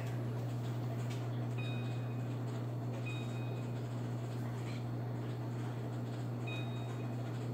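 Kitchen appliance keypad beeping three times as a timer is set, each beep short and high-pitched, over a steady low hum.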